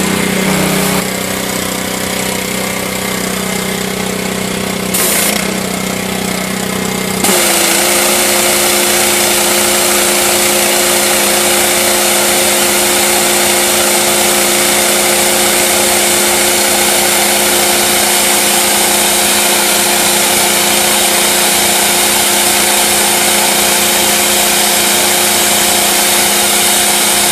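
Gas pressure washer with a Honda GC190 four-stroke engine running steadily; about seven seconds in the wand is triggered and a loud, steady high-pressure water spray hisses over the engine, which takes up the pump load with a changed note.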